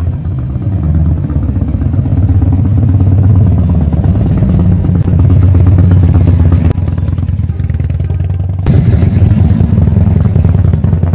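Harley-Davidson V-twin motorcycle with its loping 'potato' exhaust beat, getting louder as it rides up close. It eases off briefly, then the throttle opens sharply about three-quarters of the way through as the bike pulls away.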